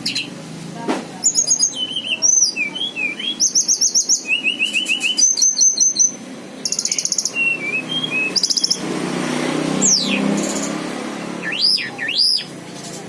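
A tledekan gunung (Sunda blue robin) singing vigorously: a long run of varied phrases of fast trills, rapidly repeated high notes and sliding whistles. A steady hiss rises underneath for a few seconds near the end.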